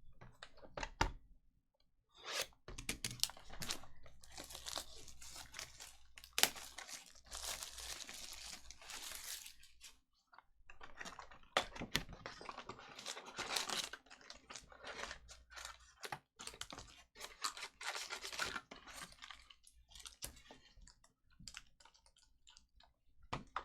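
Trading card packaging being torn open by hand: wrappers ripping and crinkling in irregular bursts, mixed with sharp clicks and taps, with a brief lull about ten seconds in.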